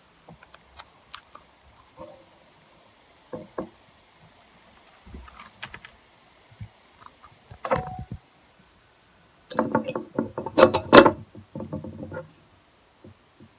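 Small hard objects clinking and rattling: a few scattered clicks, then a dense clatter from about nine and a half seconds in.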